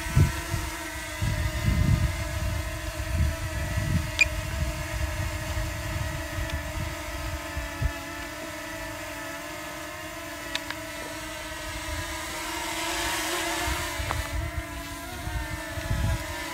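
DJI Mini 2 quadcopter's propellers and motors humming steadily as it flies slowly, with gusts of wind buffeting the microphone.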